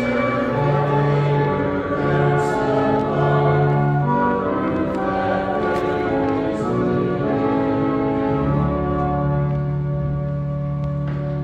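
Church organ playing a hymn in sustained chords that change every second or so. It settles on a long final chord with a deep bass note added about eight seconds in.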